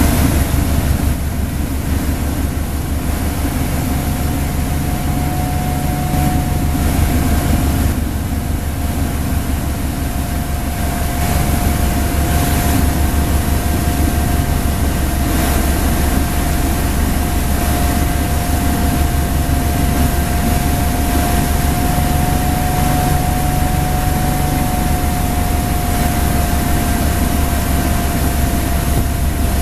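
Motorboat engine running steadily at towing speed: a deep drone with a faint steady whine, over the rush of wake water.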